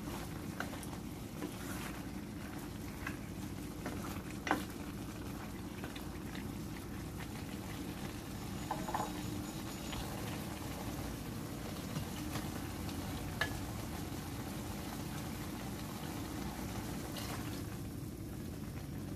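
Chicken gizzards and livers sizzling in their juices in a stainless steel pan, a steady frying noise, with a few sharp knocks of a spatula against the pan.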